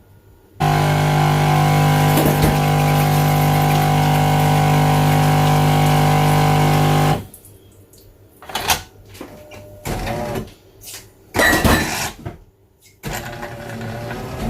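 Jura Impressa F8 coffee machine running with a loud, steady hum for about six and a half seconds; it starts and cuts off abruptly. Scattered clicks and knocks follow.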